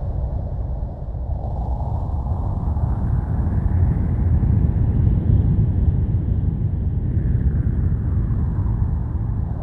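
Dark horror background ambience: a steady deep rumbling drone with a hissing wash over it that slowly rises in pitch over the first few seconds and sinks again near the end.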